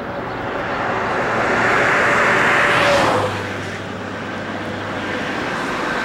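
A car passing close by: its engine and tyre noise swells to a peak about three seconds in, then drops in pitch as it goes away.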